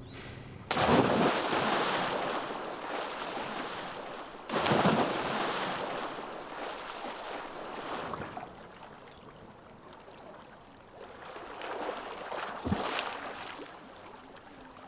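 Two people jumping into a lake: a loud splash about a second in and another a few seconds later, each followed by water churning and settling. Lighter splashing from swimming comes near the end.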